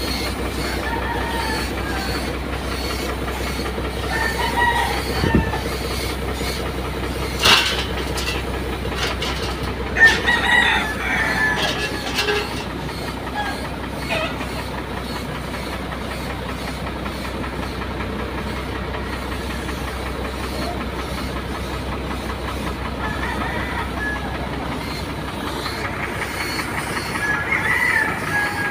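Suction-feed paint spray gun hissing steadily with compressed air as it sprays the truck's body panels. Roosters crow several times in the background, and there is one sharp knock about seven seconds in.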